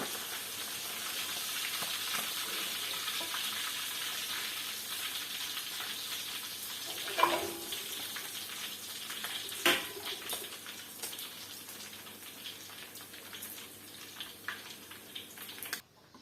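Food sizzling in hot oil in a pan, the sizzle slowly dying down, with two sharp clanks of a utensil against the pan partway through. The sound cuts off suddenly near the end.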